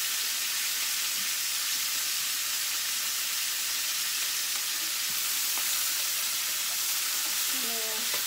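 Chicken pieces frying in a skillet, a steady sizzle as they brown, with a couple of faint clicks midway.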